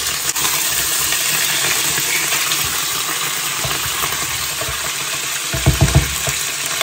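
Oil sizzling steadily under a whole chicken frying in a pan, with the scrape and shuffle of a spatula as the bird is turned over. A few low knocks near the end as the utensils are set down.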